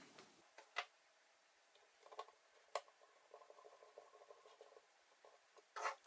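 Near silence: room tone with a few faint clicks and, around the middle, a short run of light ticking.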